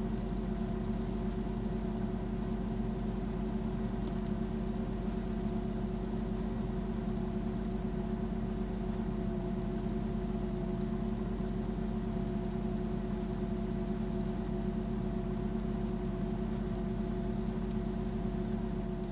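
A car engine idling steadily, with an even hum and no revving.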